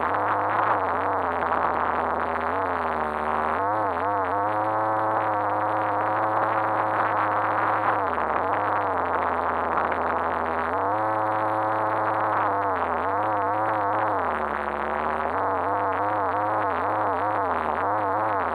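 Radio-controlled car's motor whining, its pitch holding steady for a few seconds at a time, then rising, falling and wobbling with the throttle. It sounds muffled and dull through the fully sealed action-camera housing.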